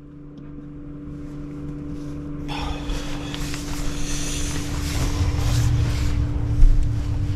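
Small electric fan running with a steady motor hum, fading in over the first seconds. About two and a half seconds in, a broad rustling hiss joins it.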